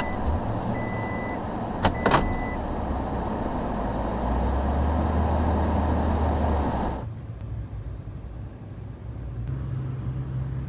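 Vehicle being put into reverse, heard from the cab: a high reverse-warning beep sounds three times, with a couple of sharp clicks, over the engine's steady low running, which grows louder as it backs up. It then cuts suddenly to quieter, steady road noise from inside a vehicle driving on a highway.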